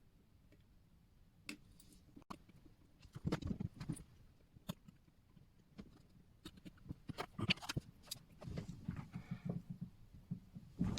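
Light clicks, taps and scrapes of small hand tools against a Pulsar YM62 watch case as its back plate is taken off, coming in clusters about three seconds in and again through the second half.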